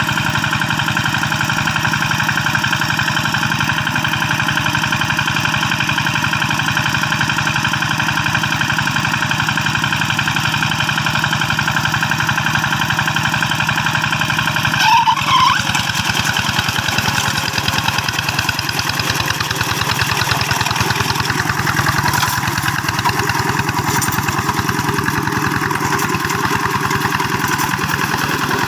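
Old diesel engine of a two-wheel hand tractor running steadily, with a brief louder sound about halfway through, after which the engine note changes a little.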